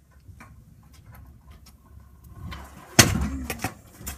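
Stunt scooter hitting the ground with one loud sharp clack about three seconds in, with light knocks and rattles before and after it as the rider attempts a trick.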